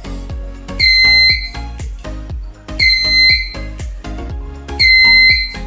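Fire alarm sounder giving a high, piercing beep about every two seconds, each a half-second tone ending in a short blip, over background music with a drum beat.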